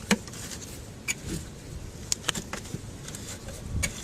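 Scattered light metallic clicks and taps of a hand tool working at the clamp screw that joins the air intake to the throttle body, over a low rumble.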